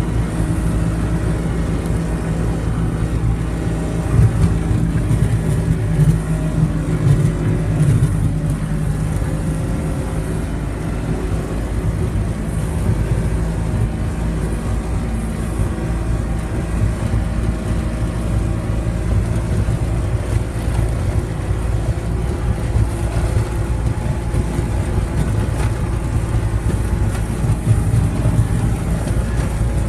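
A motor vehicle's engine running steadily with road rumble, heard while riding in the vehicle.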